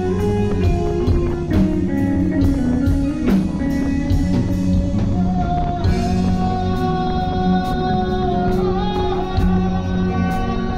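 Live rock band playing through a PA: electric guitar, keyboard and a drum kit keeping a steady beat, with a long held note bending near the middle.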